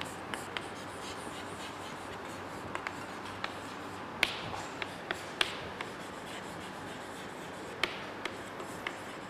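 Chalk writing on a chalkboard: irregular sharp taps and light scrapes as letters are formed, over a faint steady room hiss.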